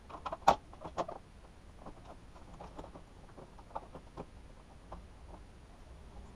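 Irregular light clicks and taps of hand tools on the bolts and plastic of a motorcycle's lower fairing as it is being unbolted, with two sharper knocks about half a second and one second in.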